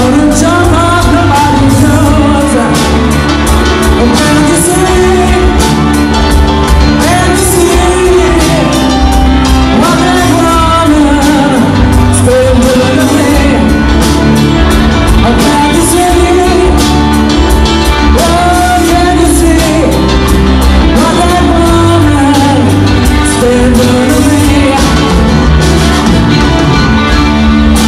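Live rock band performing a song: electric guitars with a lead vocalist singing over them.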